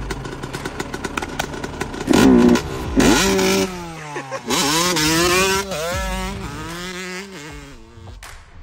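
Dirt bike engine running at low revs, then revved hard about three seconds in, its pitch rising and falling several times before it fades away.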